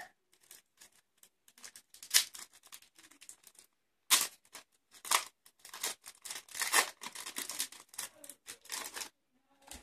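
Foil wrapper of a Topps baseball card pack being torn open and crinkled, in an irregular run of crackling, rustling bursts.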